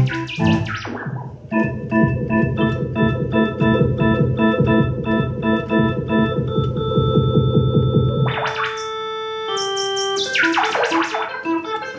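Soviet Elektronika EM-141 'Venta' Hammond-style electric organ playing a repeating chord figure over a held low bass note. About eight seconds in the bass note stops and fast, bright runs of notes sweep in.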